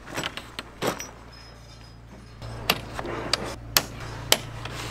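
Metal tent pole clicking and knocking as it is handled and fitted into the canvas shelter's clips and sleeve: about six sharp clicks, the louder ones coming in the second half.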